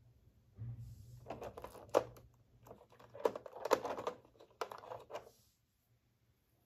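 Clear plastic blister tray crinkling and clicking as small plastic figure parts are handled and lifted out of it: a run of light taps and rustles that stops about a second before the end.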